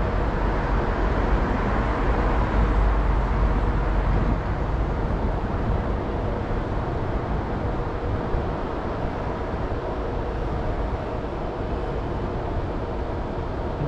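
Steady road traffic noise with a low rumble that is heaviest for the first five seconds and then eases, over a faint steady hum.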